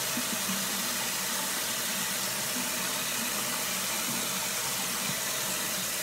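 A steady, even hiss that does not change in level or pitch.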